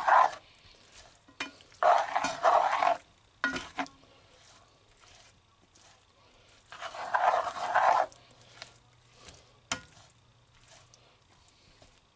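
A spoon stirring and scraping chicken taco meat in a frying pan, in three main scraping bursts about a second each, with a single sharp tap later on.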